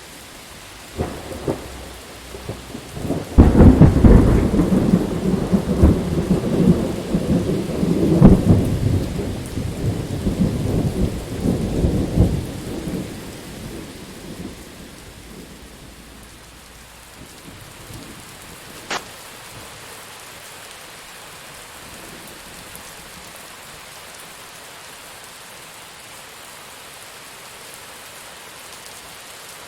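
Thunderstorm: steady rain with a thunderclap about three seconds in that rumbles on loudly for some ten seconds before dying away, and a sharp crack near the middle.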